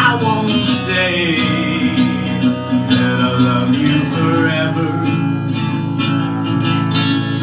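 Acoustic guitar strummed as a song closes, with a sung vocal line gliding over it during the first few seconds before the guitar carries on alone.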